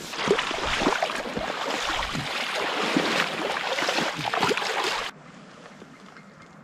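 Footsteps with close rustling and swishing of clothing and vegetation, full of crackles and a few low thuds. About five seconds in it cuts off suddenly to a faint, steady wind hiss.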